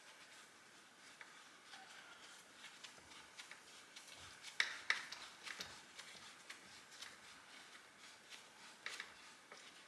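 Faint, scattered light clicks and ticks of a T-handle driver and small screws being handled while the bottom coarse-thread screws of a chainsaw wrap handle go in, with a few sharper clicks about halfway through.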